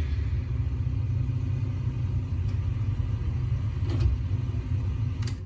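Low, steady rumble of a Cadillac Escalade's engine as the SUV rolls slowly forward, played back through a television's speakers. A couple of faint clicks come about four and five seconds in.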